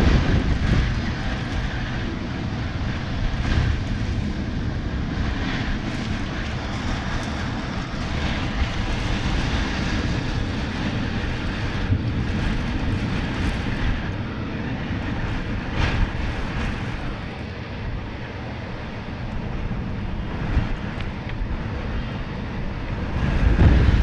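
Heavy rain and wind of a severe thunderstorm: a steady rushing noise that swells louder near the end.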